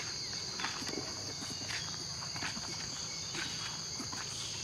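A steady, high-pitched drone of an insect chorus, with soft irregular footsteps on a dirt path.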